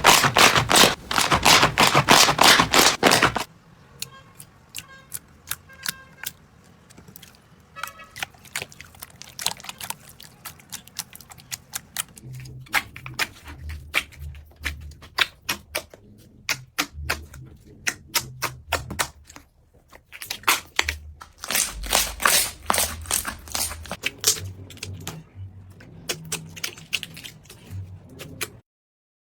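Slime being worked by hand, making rapid sticky clicks and pops. Dense and loud for the first few seconds, then sparser, with soft low thumps, thickening again about three quarters of the way through, and cutting off just before the end.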